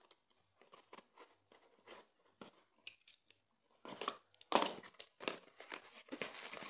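Packaging around a ceiling fan blade being opened by hand: sparse crinkles and rustles at first, then louder, denser crinkling and tearing from about four seconds in.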